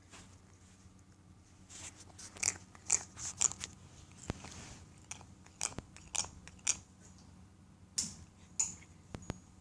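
A cat grinding its teeth, a cat with several rotten teeth extracted some months before: irregular clusters of short, sharp scraping clicks from its mouth, coming in bouts a couple of seconds apart.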